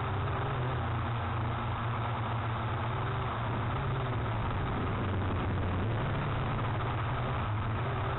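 Strong wind buffeting the microphone: a steady low rumble with a noisy rush above it.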